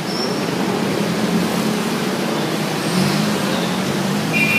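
Heavy city road traffic heard from among the vehicles: car and motorbike engines running close by over a steady rush of road noise. A brief high tone sounds near the end.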